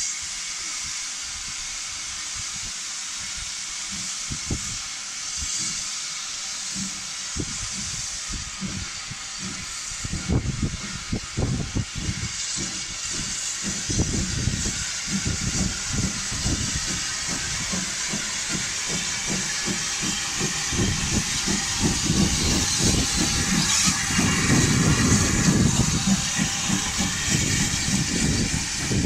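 Hawthorn Leslie saddle-tank steam locomotive hauling coaches, steam hissing steadily, with the rumble of the train growing louder as it draws near and loudest as the engine passes near the end.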